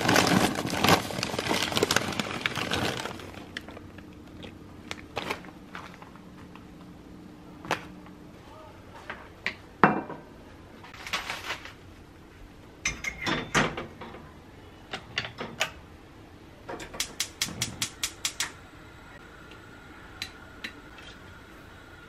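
First a loud crinkling of plastic snack packets as a hand rummages along a pantry shelf, then scattered knocks and clatters of kitchen things being handled and set down. About 17 s in comes a quick run of about ten sharp clicks from a gas range's igniter as a burner is lit under a pot.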